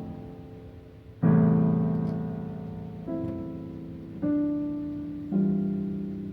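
Slow solo piano: four chords struck one after another, each left to ring and fade before the next. The first, about a second in, is the loudest.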